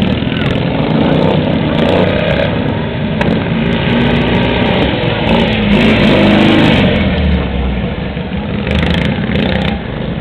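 Racing lawn mowers' small engines running at speed around the track, several at once, loudest about six seconds in as one passes close by.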